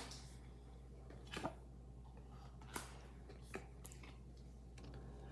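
Near quiet with a low steady hum, and a few faint soft clicks and rustles of trading cards being handled.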